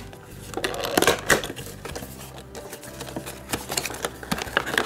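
A cardboard miniatures booster pack being slit open with a craft knife and its packaging handled: a scratchy rustle about a second in, then scattered clicks and crinkles of cardboard and plastic.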